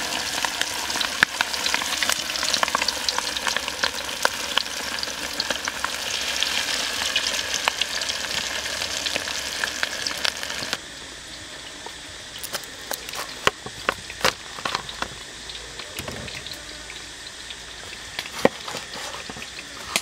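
Batter-coated pork pieces deep-frying in hot oil in a wok: a dense, steady sizzle and crackle. About halfway through, it drops suddenly to a much quieter background with scattered pops.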